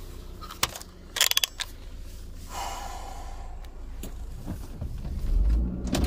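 Inside a car: a few metallic clicks and a short jingle like keys about a second in, over the low rumble of the car's engine, which grows louder near the end.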